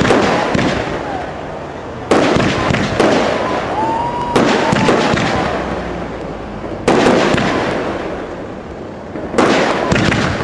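Fireworks going off: four loud bangs about two and a half seconds apart, each trailing off in a long fading crackle and echo, with a short whistle partway through.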